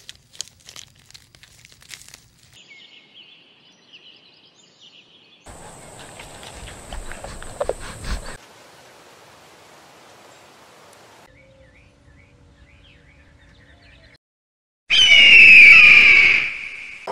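A run of short, mostly faint outdoor animal recordings with scattered clicks and faint chirps. Near the end comes an eagle's loud, high-pitched piping call: a rapid series of falling whistled notes lasting about two seconds.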